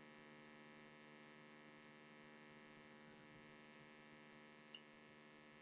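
Near silence: a faint, steady electrical hum, with one tiny click near the end.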